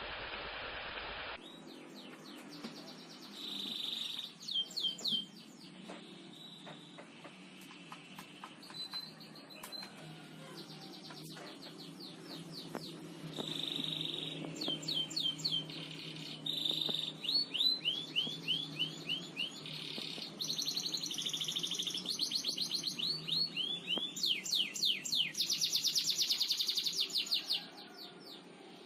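Domestic canary singing a long song of rapid rolling trills and fast runs of repeated high notes, thickest and loudest in the second half. A short burst of hiss comes in the first second or so.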